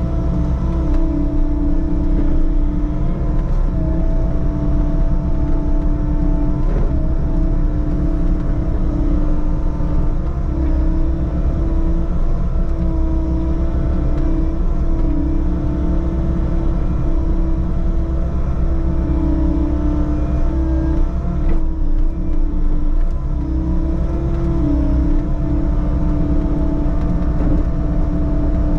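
Diesel engine of a compact construction machine running steadily under working load with a droning whine, its pitch dipping briefly now and then as the load changes.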